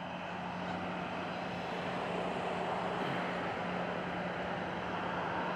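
Steady distant road traffic noise, with a constant low hum running under it.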